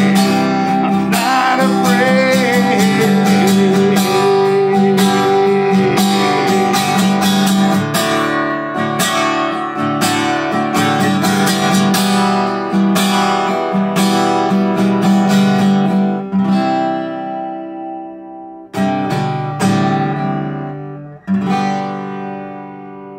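Acoustic guitar strumming under a man's sung line that wavers and ends in the first few seconds. The strumming thins out to a few last separate chords, each left to ring and die away as the song ends.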